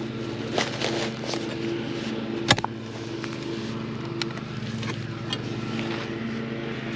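Lawn mower engine running steadily at a constant speed, with a sharp knock about two and a half seconds in and another at the very end.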